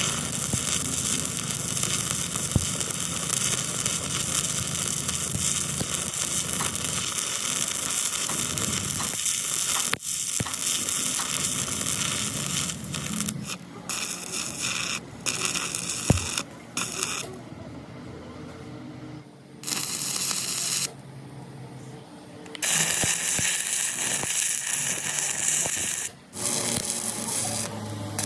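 A power tool running with a steady hissing whir, cut off abruptly and dropping in level several times in the second half.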